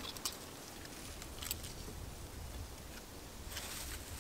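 A few light clicks and scrapes of a utensil in a small metal pot while salad is stirred and eaten, with a cluster of clicks near the end.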